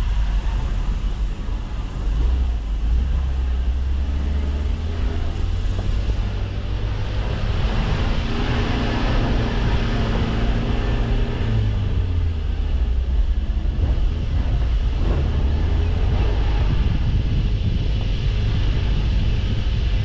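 Mitsubishi L300 Delica 4WD van driving along a dirt track: a steady low engine drone over a rough rumble, the engine's overtones strongest about halfway through.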